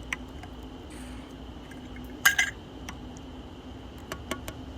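Small hard clicks and clinks from handling a Zippo lighter-fluid can and the lighter's metal insert, with one sharp double clack a little over two seconds in and a few fainter ticks near the end.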